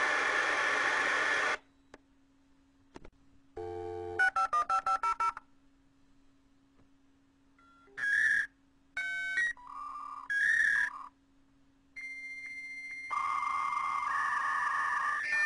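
56K dial-up modem connecting: a loud hiss that cuts off about a second and a half in, then quick touch-tone dialing around four seconds in and a few short tone bursts. From about twelve seconds a steady high answer tone gives way to the modem handshake's mix of tones and hiss.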